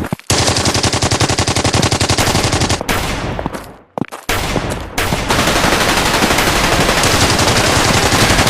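Rapid machine-gun fire sound effects: a long burst of fast shots that fades out about four seconds in. After a brief silence, sustained heavier gunfire follows.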